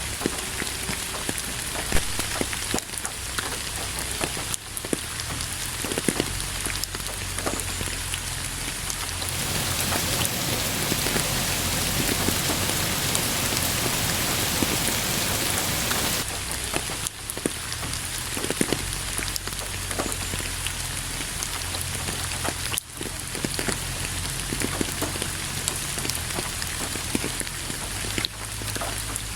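Steady rain falling on a surface, with many separate drops landing sharply through the even hiss. From about a third of the way in until a little past halfway, the rain thickens into a denser, louder shower, then eases back.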